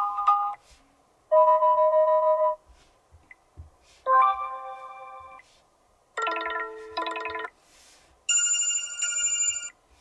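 Sony Xperia 5 III built-in ringtones previewed one after another through the phone's speaker. The end of one ringtone is followed by four short electronic melodies of about a second and a half each, with pauses between. Each is cut off as the next is selected, and the last is much higher-pitched than the first.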